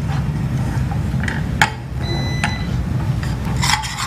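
A steady low hum with a few light clicks and knocks of kitchen utensils against cookware. A brief high tone sounds about two seconds in.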